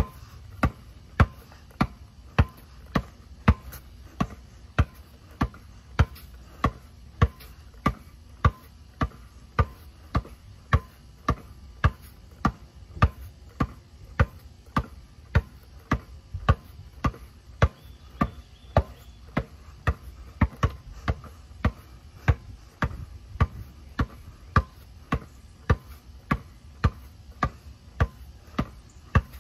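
Basketball being dribbled on hard ground in a steady, even rhythm, just under two bounces a second.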